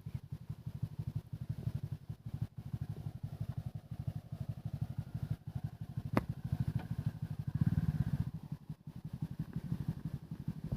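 Hero Splendor motorcycle's single-cylinder four-stroke engine running with a rapid, even exhaust beat, swelling louder for about a second a little past the middle. One sharp click sounds about six seconds in.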